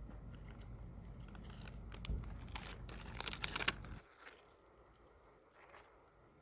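Crinkling and rustling, densest for a couple of seconds, then stopping abruptly about four seconds in.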